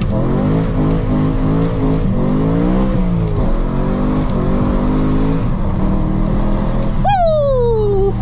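BMW E92 M3's S65 V8 revving hard in a launch on a wet road, its pitch climbing, dropping at a gear change about three seconds in, climbing again, then settling to a steadier lower note. The tyres were slow to hook up. Near the end a separate tone falls in pitch.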